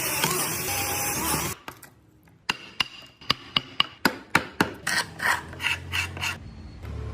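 A loud steady noise of a tool working wood for about a second and a half, which then stops. After a short pause comes a run of sharp knocks, two or three a second, from a mallet striking a carving chisel into wood.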